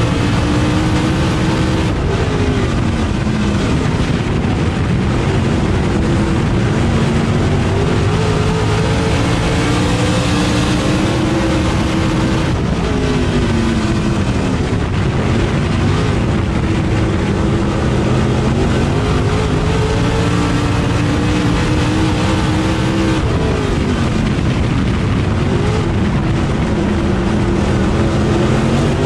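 Onboard sound of a dirt super late model's V8 racing engine at full race pace, heard from inside the cockpit. The engine pitch drops and climbs back about three times, roughly every ten seconds, as the car laps the dirt oval, over a steady rush of tyre and wind noise.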